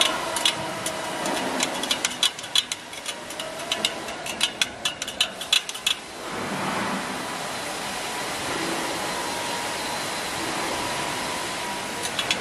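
Spoked motorcycle wheel being worked on a truing stand: quick, irregular metal clicks for about six seconds, then a steady whirring hiss.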